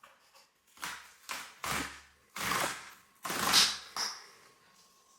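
Packaging being handled and unwrapped: a run of about six short rustling swishes, the loudest about three and a half seconds in.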